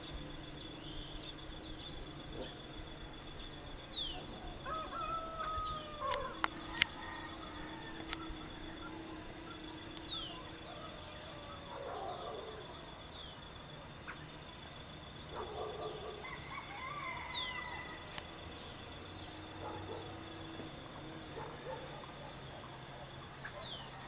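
Early-morning dawn chorus of several wild birds: high trilled songs repeating every few seconds, short down-slurred whistles and scattered lower calls, over a steady high-pitched insect drone.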